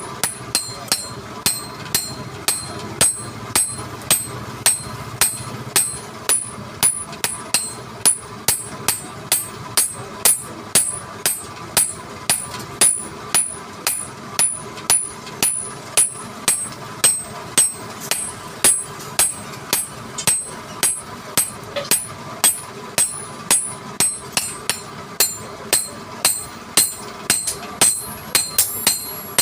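Hammer striking metal at a steady pace of about two blows a second, each blow leaving a short, high metallic ring.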